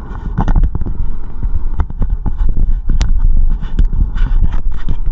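Full-face respirator mask being breathed through and handled. Irregular clicks and knocks from the mask and hose connection come over a heavy low rumble, with a sharp click about three seconds in.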